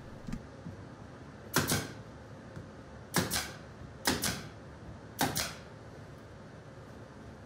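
Pneumatic nail gun firing four times, driving nails into a pine cap board. Each shot is a sharp double snap, and the shots come about a second apart, starting about a second and a half in.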